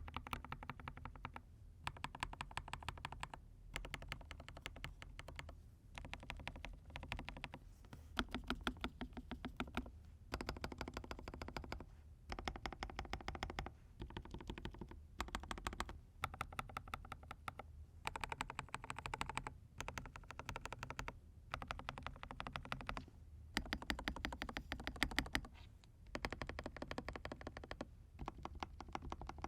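Mechanical keyboard with fully hand-lubed Huano Cherry Blossom linear switches being typed on: quick runs of keystrokes in bursts of a second or two, broken by short pauses.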